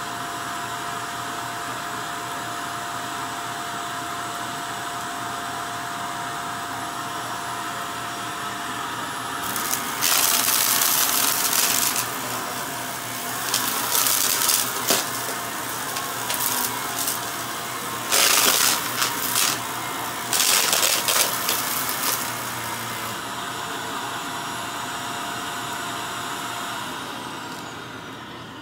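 Upright vacuum cleaner running on carpet with a steady whine, broken by four loud rattling stretches as it sucks up debris. Near the end the motor winds down with a falling whine.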